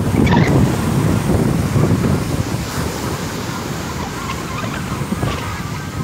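Ocean surf breaking on the beach, a steady wash of waves, with wind blowing across the microphone.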